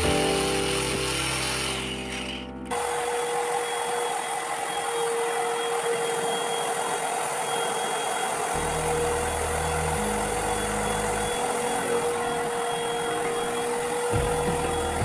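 An angle grinder spins a bicycle bearing cup against its wheel for a couple of seconds. Then a paint spray gun runs steadily, a constant hum under the hiss of the spray.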